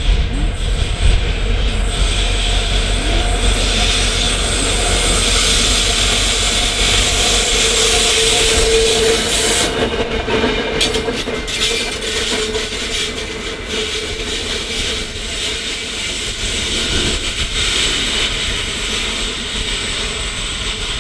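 Qube 1100 class diesel locomotive passing close by as a light engine, its diesel engine running steadily and loudest about eight to ten seconds in. Around the moment it draws level there is a run of sharp clicks from the wheels over the rail joints.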